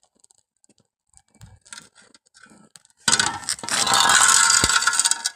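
A few faint scrapes and clicks, then about three seconds in a loud, rough scraping across concrete that lasts about two seconds and stops abruptly.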